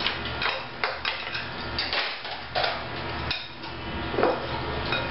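Metal spoon clinking and scraping against a glass bowl as grape tomatoes are stirred, in a run of irregular knocks.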